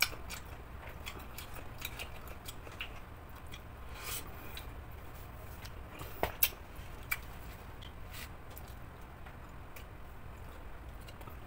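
Quiet eating sounds: fingers picking fried chicken apart on a plate and chewing, with scattered small clicks and taps, a few close together about six to seven seconds in, over a steady low hum.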